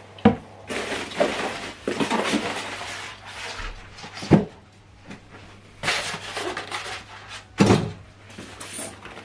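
Packaging being handled while a wireless rear speaker is unboxed: stretches of rustling, with three sharp knocks, the middle one about four seconds in.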